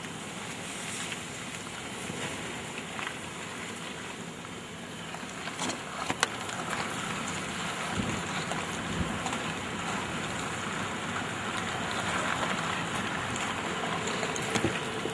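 Steady rushing of storm wind and rain, with wind buffeting the microphone. A couple of sharp clicks come about six seconds in.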